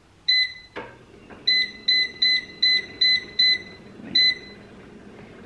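Ikich air fryer's touch control panel beeping as its buttons are pressed to step the temperature up to 400 °F: a single beep, then a quick run of about eight beeps at about four a second, and one more beep a second later. A sharp click comes just under a second in.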